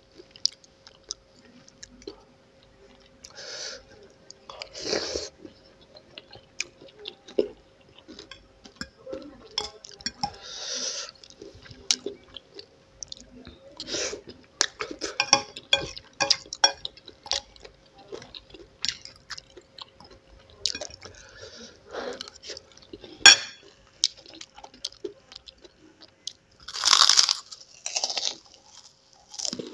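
Close-miked eating of spicy instant noodles: noodles slurped off a fork and chewed wetly, in irregular bursts. Near the end, fried wonton crackers crunch between the teeth.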